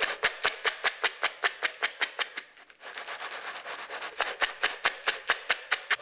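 Dry cereal and candy being stirred in a plastic mixing bowl, clicking and rattling in a quick, even beat of about five strokes a second, with a short quieter pause near the middle.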